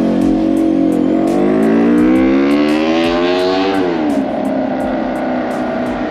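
A motor vehicle's engine in passing street traffic. It rises steadily in pitch as it accelerates for about three seconds, falls back sharply a little before the halfway point, then runs on at a steady pitch.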